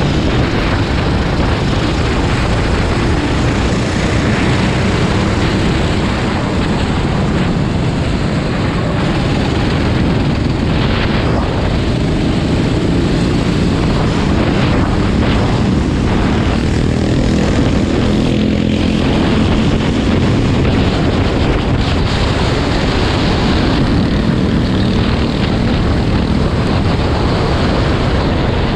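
Motor vehicle engines running, a loud steady drone.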